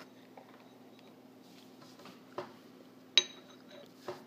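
A metal yoyo clinking as it is handled and put down on a hard countertop: a couple of small clicks and one sharp clink a little past three seconds in, ringing briefly.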